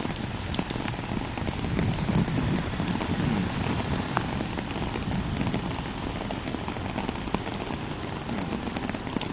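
Steady rain falling, with individual drops ticking sharply on a nearby surface.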